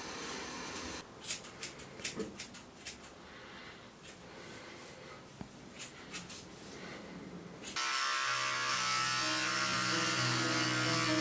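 Scissors snipping through hair in a quick, irregular run of sharp snips, some louder than others. About eight seconds in, music starts abruptly and carries on to the end.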